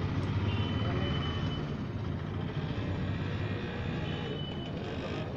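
A steady low mechanical drone, like an engine running, with a faint thin high whine twice.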